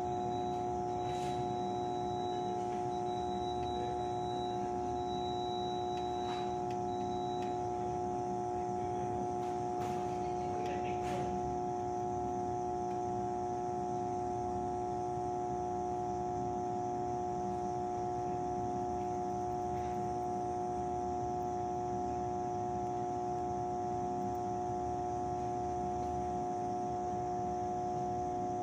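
Energized substation power transformers giving a steady electrical hum with several pitched overtones, the sign that the transformers are live and under voltage.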